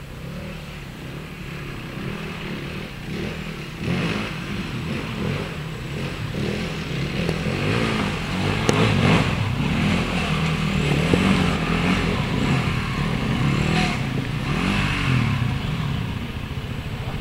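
Two off-road trail motorcycles approaching down a rocky lane, their engines revving up and down in pitch and growing louder as they come closer.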